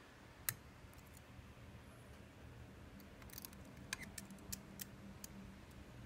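Faint metallic clicks of a hook pick working the wafers inside a Miwa U9 wafer/lever hybrid lock held under a tension wrench. There is one sharp click about half a second in, then a cluster of small clicks and ticks from about three to five seconds in.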